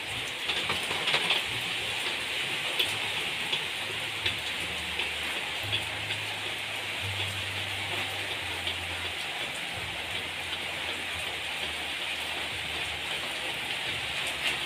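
Steady hiss of rain, with an Epson L360 inkjet printer printing underneath it: the print head carriage shuttles back and forth as the paper feeds through, with a low motor hum that shifts in pitch and a few light clicks.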